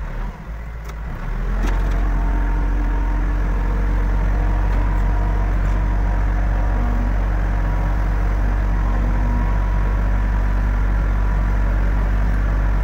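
Backhoe loader's diesel engine picking up revs about a second and a half in, then running steadily under load as the machine works.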